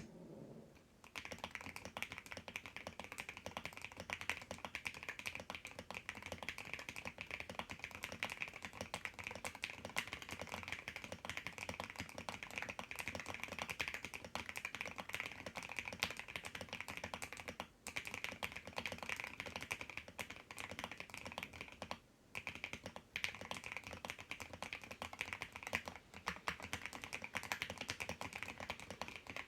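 Fast, continuous typing on a custom mechanical keyboard with lubed, filmed Alpaca linear switches, ABS MT3 keycaps and a polycarbonate plate. Typing starts about a second in and runs steadily, breaking off briefly twice in the second half.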